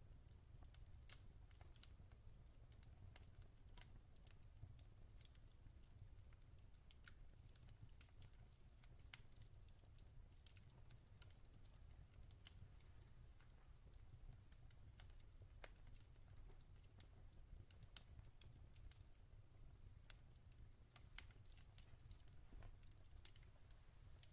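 Log fire crackling faintly: irregular small pops and snaps, a few a second, over a steady low rumble.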